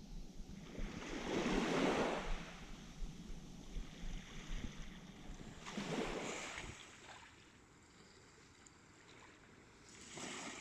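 Small waves breaking and washing up the beach: two swells of surf, about two seconds in and about six seconds in, then a lull near the end.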